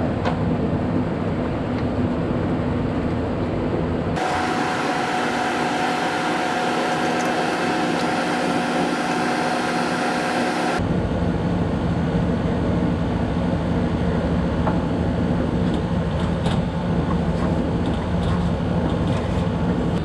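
Air conditioner's outdoor unit running, a steady hum with fan noise close to the microphone. For several seconds in the middle the low hum drops away and a brighter hiss with a steady tone takes its place.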